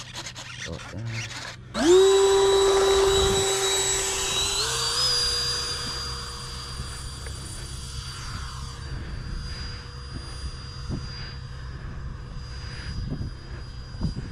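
Habu 70mm electric ducted-fan RC jet throttling up for takeoff: a few clicks, then about two seconds in the fan's high-pitched whine comes in suddenly and loud. It steps up slightly in pitch and then fades steadily as the jet takes off and flies away.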